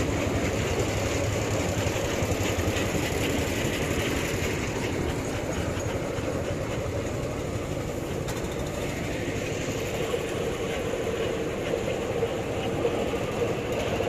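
Motorised rail inspection trolleys running past on the track: a small engine running steadily with the wheels rolling on the rails.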